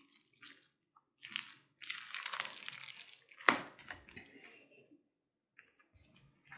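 Spoon mixing potato salad in a glass bowl: a few wet, squishing strokes through the mayonnaise-dressed potatoes, with one sharp knock about three and a half seconds in.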